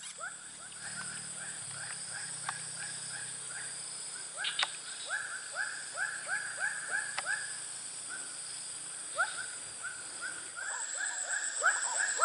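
An animal calling in runs of short chirps, about three a second, pausing for a couple of seconds and then starting again, over a steady high-pitched insect whine.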